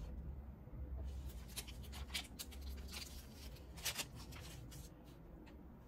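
Trading cards being handled and set down on a wooden tabletop: a run of light scrapes, rustles and taps, the loudest a little past the middle.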